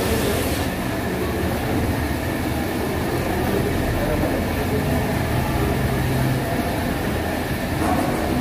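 Steady low rumbling background noise, with faint voices in the background.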